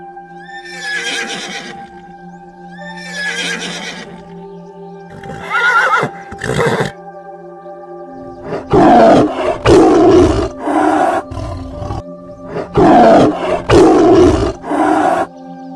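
Loud, harsh calls from an equine, such as a donkey, zebra or horse, over steady background music. A few shorter calls in the first half lead to two loud runs of repeated calls in the second half.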